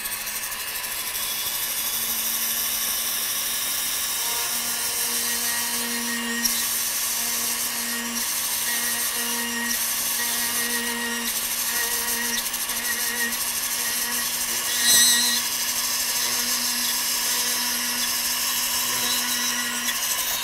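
High-speed rotary tool with a small ball cutter running with a steady high whine as it cuts small divots into a wooden rifle stock's tang area, with a brief louder burst about fifteen seconds in.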